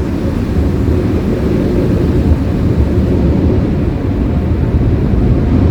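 Automatic car wash equipment running, heard from inside the car's cabin as a loud, steady low rumble that grows slightly louder.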